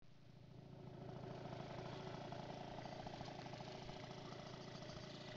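Piaggio NRG Extreme 50cc two-stroke scooter engine, stock but fitted with a Yasuni R aftermarket exhaust, idling steadily with a fast, even pulse.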